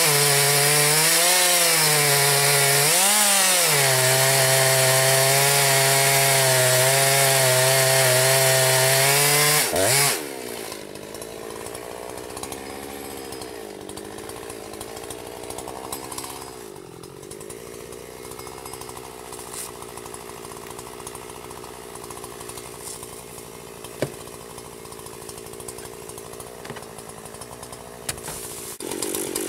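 Chainsaw running at high revs, its pitch dipping twice near the start as it loads up in the cut. About ten seconds in it drops away suddenly to a much quieter, lower engine sound that runs on, with one sharp click later.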